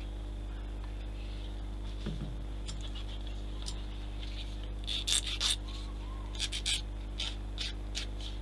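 Short, sharp scrapes and clicks of small plastic model-kit parts being worked by hand, a quick cluster of them in the second half, over a steady low electrical hum.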